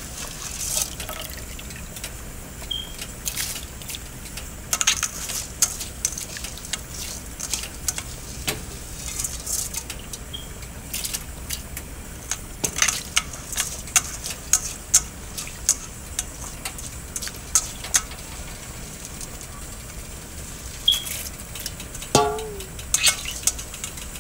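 Washed white rice tipped and scooped by hand from a stainless steel bowl into a pot of water: irregular splashes and small sharp clicks of grains and fingers against the metal bowl.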